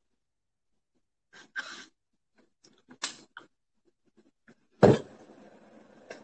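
Faint handling sounds of a plastic drink bottle, then one sharp knock about five seconds in as it is set down on the table.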